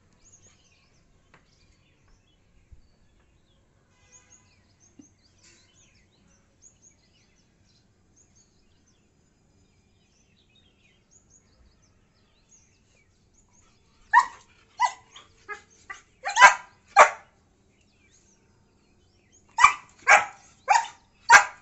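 German Shepherd dog barking in two runs of short barks after a long quiet stretch: about seven starting about two thirds of the way in, then four louder ones near the end.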